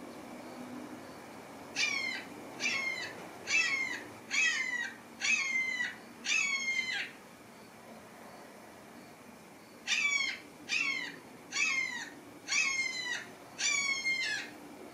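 Domestic cat meowing repeatedly: a run of six short meows, each falling in pitch, a pause of about three seconds, then five more.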